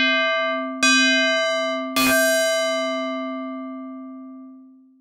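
FM bell tone from the Tracktion F.'em software synthesizer, with operator 7 feeding back into itself. The same note is struck three times: it rings at the start, is struck again about a second in and again about two seconds in with the brightest attack, then fades out over about three seconds with many overtones.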